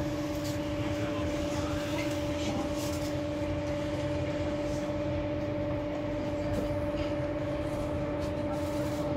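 Inside a Hamburg subway car rolling slowly alongside a station platform: a steady electrical hum in two even tones over a low running rumble.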